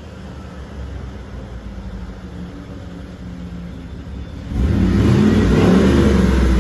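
Car engine idling, then revved hard about four and a half seconds in, much louder.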